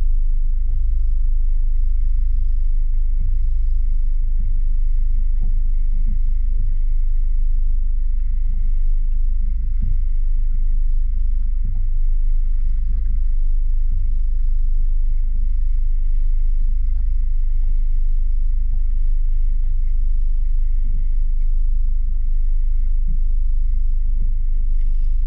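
Steady low wind rumble on the microphone, with irregular soft thumps of choppy water slapping the boat's hull and a faint steady high whine.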